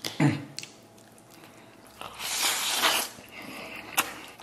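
Close-up eating sounds: a man chewing and slurping a mouthful of rice mixed with glass noodles. A loud slurp comes about two seconds in and lasts about a second, and a sharp click follows near the end.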